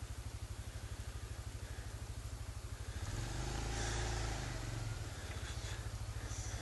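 ATV engine idling with a steady low pulsing beat, then revving up and pulling away about three seconds in.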